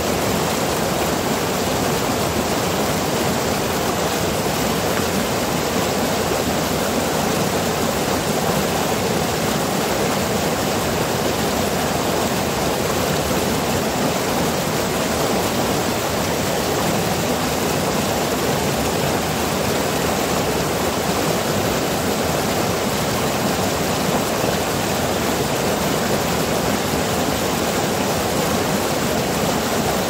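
Rocky stream rushing in white water over and between boulders: a steady, full rush of water that does not change.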